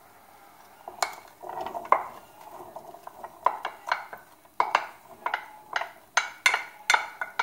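Wooden spoon tapped again and again against a large metal pot to knock chopped onion into it, each tap with a short metallic ring. The taps are sparse at first and come faster in the second half.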